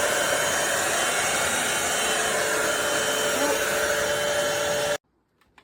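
Cordless stick vacuum cleaner running steadily with a motor whine, switched off about five seconds in so that it cuts out suddenly, followed by a faint click.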